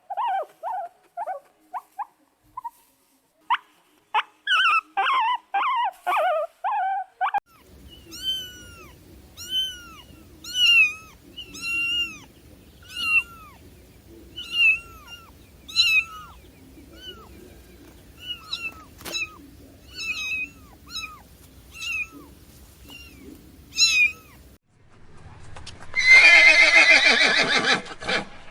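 Kitten meowing over and over, each short meow rising and falling in pitch, after a run of short high calls. Near the end a horse whinnies loudly with a wavering, falling pitch.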